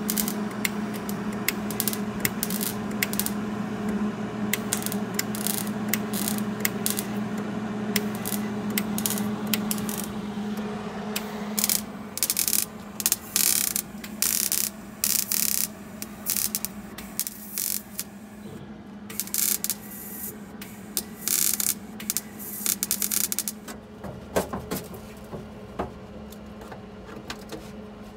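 Metalwork on a car's sheet-steel floor pan: clicks and taps over a steady low hum. From about twelve seconds in, a run of short crackling bursts of hiss, each a second or less, typical of MIG tack welds.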